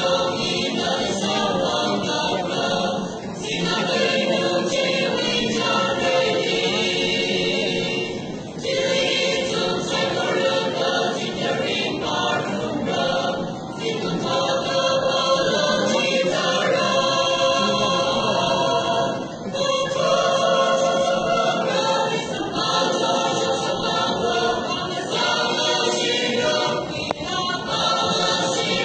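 Mixed choir of men and women singing, in long phrases with brief dips between them about every five seconds.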